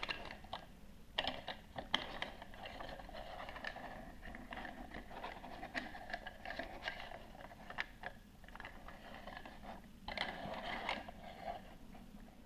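Faint handling noise of a plastic Play-Doh toy vehicle: light scraping as it is pushed and moved about on the tabletop, with a few small plastic clicks and knocks. The scraping comes in patches and is busiest near the start and about ten seconds in.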